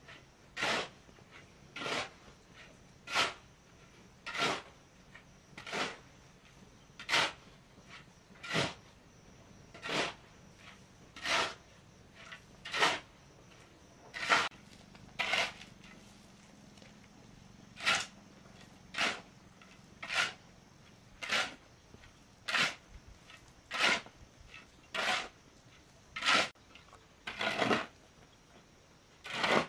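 Steel shovel blade scraping and scooping through a dry mix of cement and gravel on hard dirt ground. The short scrapes come in a steady rhythm, about one every second and a bit, with a brief pause near the middle.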